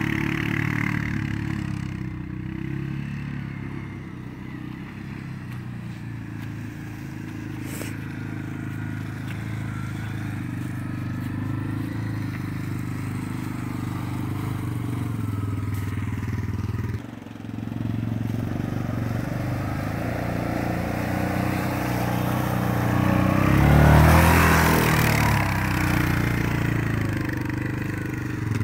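Quad ATV engine running steadily, growing louder to a peak about 24 seconds in, with a brief drop in sound about 17 seconds in.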